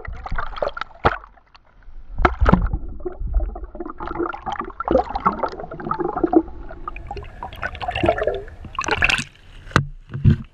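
Water gurgling and rushing around a camera held underwater, with irregular knocks, and a louder burst of splashing near the end as the camera comes up through the surface.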